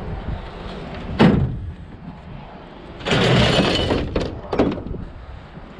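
A sharp bang about a second in, then a clattering crash lasting about a second and two short knocks, as scrap metal is handled and dropped.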